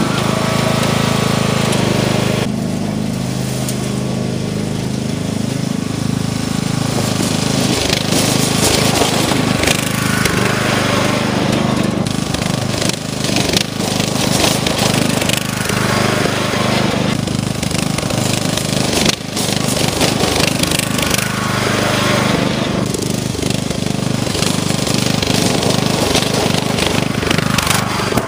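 Riding lawn mower engine running steadily, with a dense rattling clatter over a low hum.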